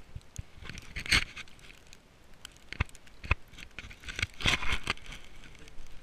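Footsteps crunching through deep snow, with irregular scraping and rustling and a few sharp knocks close to the microphone; the loudest rustling comes about a second in and again from about four and a half seconds in.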